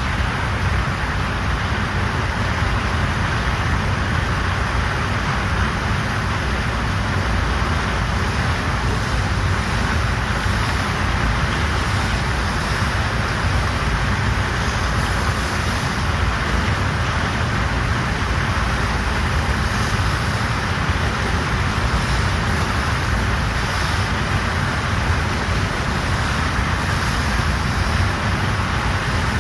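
FlowRider standing-wave machine: a fast sheet of pumped water rushing over the ride surface, a steady, loud rush.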